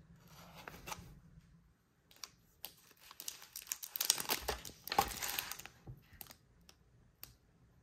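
Thin plastic packaging crinkling and crackling as a clear clamshell pack is opened and a crepe in a cellophane bag is lifted out. A few light crackles at first, then a dense run of crinkling, loudest about four seconds in, tailing off to a few small clicks near the end.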